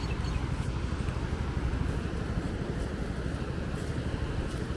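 Steady low rumble of wind buffeting the microphone, with the wash of breaking surf behind it.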